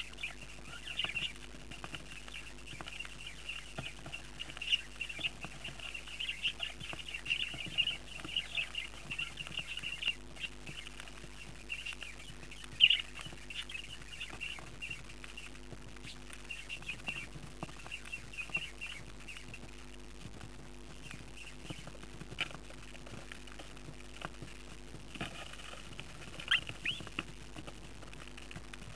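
Budgerigar chicks in the nest box giving rapid, high, squeaky begging chirps, the begging of chicks waiting to be fed, thickest in the first half and coming in short flurries later. There is one sharp knock about halfway through, over a steady low hum.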